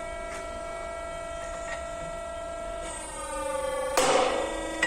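Albayrak MK30 rebar cutting machine running with a steady electric motor hum. About 3 s in, its pitch sinks as the blades bite into a 30 mm steel bar. About a second later there is a sharp crack as the bar is sheared through.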